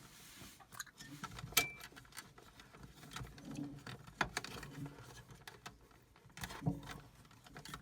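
Irregular small clicks, taps and scrapes of hands working on the mini fridge's compressor start relay and its wiring, as small plastic and metal parts are handled and fitted.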